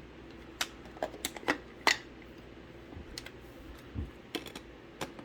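Handground Precision manual coffee grinder being handled: irregular sharp clicks and knocks of its parts, about ten in all, the loudest about two seconds in.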